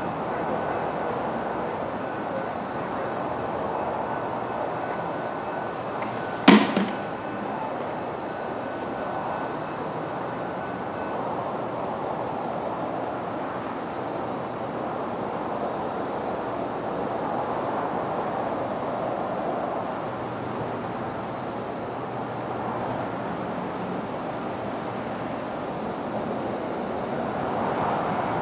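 Outdoor night ambience by the tracks while no train passes: a steady background hiss with a thin, steady high-pitched whine, broken by one sharp knock about six and a half seconds in.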